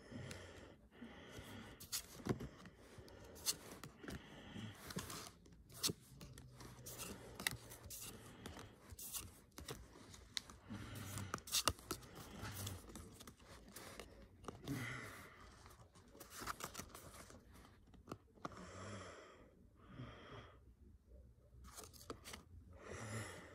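Stack of Pokémon trading cards handled and flipped through one by one: cards sliding over each other in short swishes, with many small sharp snaps and clicks.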